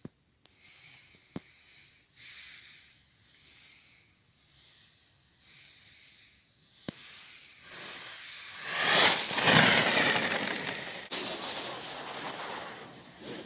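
Skis scraping and carving on packed snow in short turns: a hiss that swells loud as the skier passes close to the camera about eight to ten seconds in, then tapers off. A few faint clicks come earlier.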